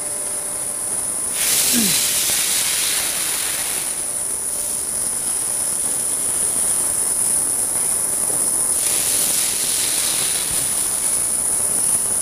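Machine-shop floor noise from running machining equipment: a steady high-pitched whine over a hiss that swells louder about a second in and again near nine seconds.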